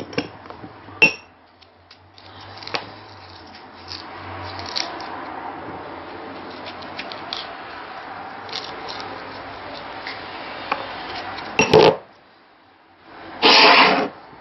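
A knife or spoon scraping and clicking against a dish while the inside of a vegetable is hollowed out by hand. There is a sharp clatter about twelve seconds in and a loud noisy burst shortly before the end.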